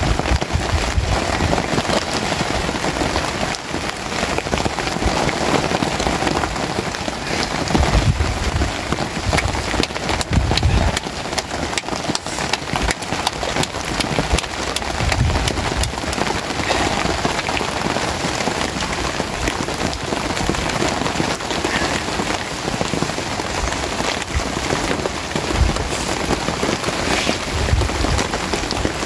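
Steady rain falling on a tarp shelter, a dense hiss made of countless fine drop-clicks, with a few short low thumps now and then.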